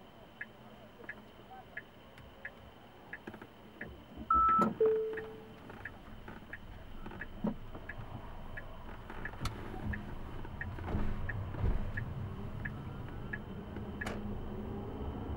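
Cabin of a Tesla Model S: a turn-signal indicator ticking about three times a second, with a loud two-note falling chime about four and a half seconds in. Tyre and road noise then builds as the car pulls away, with a rising whine near the end.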